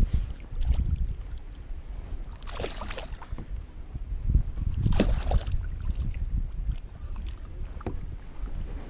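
Water slapping against a kayak hull, with wind buffeting the microphone as a steady low rumble. Two louder splashes come about two and a half and five seconds in.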